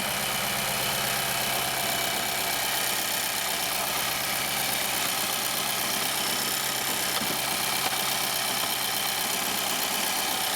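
Steady machine running in the engine bay of a 2011 Infiniti M56: a continuous hum with an even whoosh over it, unchanging throughout.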